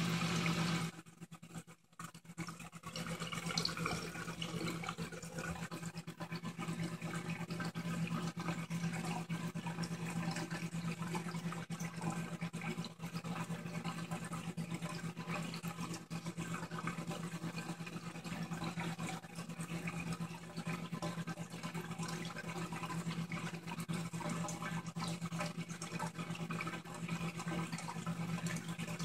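Aquarium running: water churning and bubbling over a steady low hum from the tank's pump.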